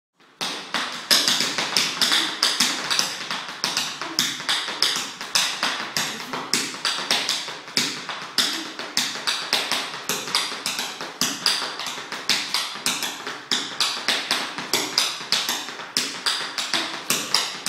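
Several children tap dancing on a wooden floor: their shoes strike it in quick, rhythmic taps that start about half a second in and keep going.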